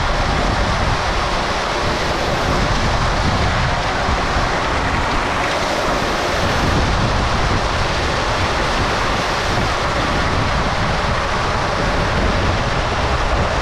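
Concrete mixer truck discharging its load down the chute, a loud, steady rushing noise without a break.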